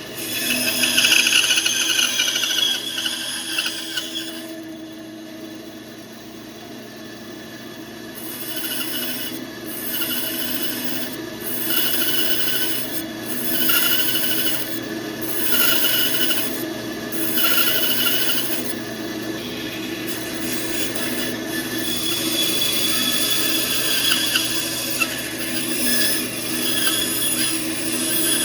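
Band saw running steadily while its blade cuts wood. There is a long cut at first, then a run of about nine short cuts a little over a second apart, then steadier cutting toward the end.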